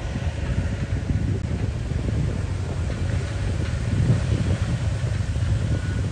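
Four-wheel-drive vehicle working over a steep, rutted off-road track: a low, uneven engine and drivetrain rumble.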